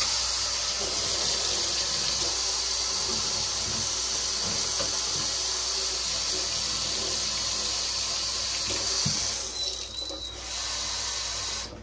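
Water from a sink tap running steadily into a container with detergent. It stops about nine and a half seconds in, then runs again briefly and shuts off near the end.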